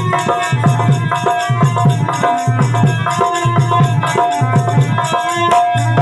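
Live devotional music between sung verses: a tabla-type hand drum plays a steady rhythm under held melody notes.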